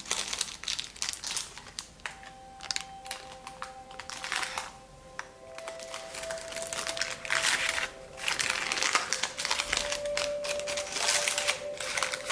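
Baking parchment crinkling and rustling in irregular bursts as a loaf is lifted out of a metal loaf tin by its paper lining, with quiet music underneath.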